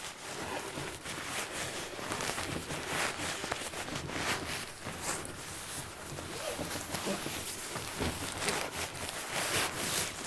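Fabric of a Granite Gear compression dry sack and a down sleeping bag rustling and scrunching as the sleeping bag is stuffed into the sack by hand, in a continuous run of short scratchy rustles.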